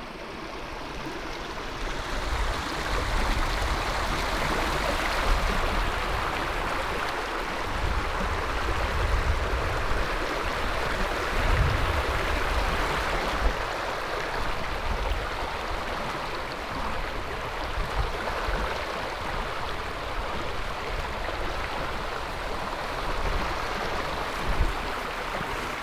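Creek water running steadily, with scattered dull low thumps.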